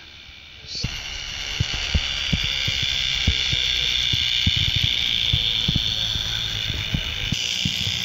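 N gauge model train running past: a steady high motor whine with irregular clicking of the wheels over rail joints and points, starting abruptly about a second in.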